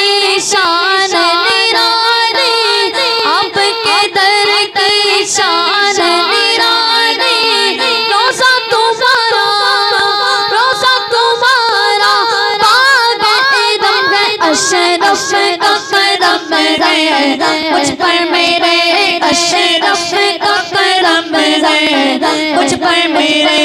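Boys singing an Urdu manqabat into microphones in long, ornamented runs whose pitch glides up and down.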